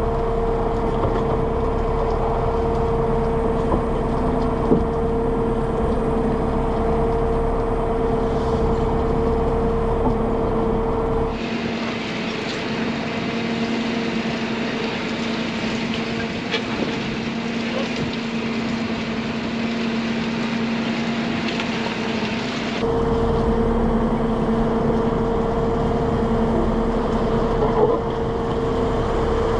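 Fishing boat's engine running steadily, with a constant low whine and rumble. For about ten seconds in the middle, a hiss of wind and sea takes over and the engine is heard more faintly.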